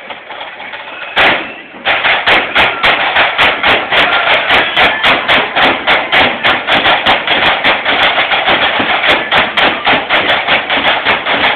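Marching band drums beating a fast, steady rhythm of about four strokes a second. A single strike comes about a second in, and the full beat starts just after.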